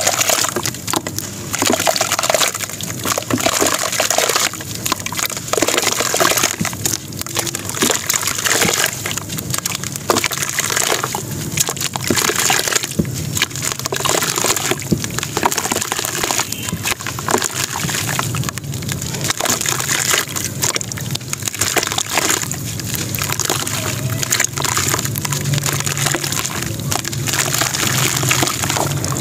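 Lumps of dry sand-cement crumbled by hand into a basin of water: steady gritty crackling and crumbling, with grit and powder pouring into the water and small splashes.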